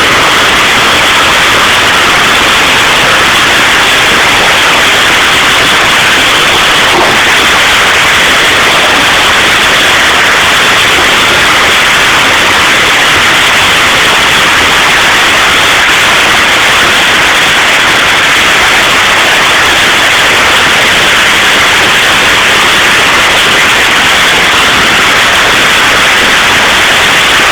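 Hail and heavy rain pelting down in a dense, steady, very loud hiss with no separate impacts standing out.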